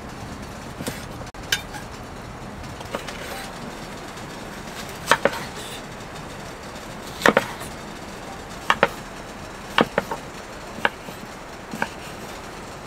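Irregular sharp knocks and clacks, about a dozen, some in quick pairs, over a steady background hiss.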